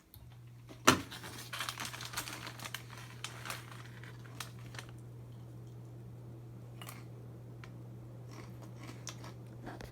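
Harbor Breeze Galileo ceiling fan motor switched up to high speed and running with a steady low hum. A single sharp click comes about a second in, followed by a few seconds of light rustling and ticking before only the hum remains.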